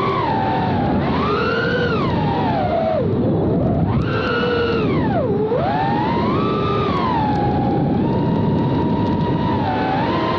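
FPV racing drone's motors whining over a rushing noise, the pitch swooping up and down every second or two as the throttle changes.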